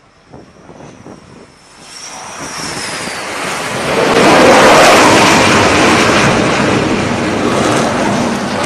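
The twin jet engines of an F/A-18 Super Hornet landing on an aircraft carrier deck. They are faint with a high whine at first, grow louder from about two seconds in, peak as the jet touches down about four seconds in, and then stay loud.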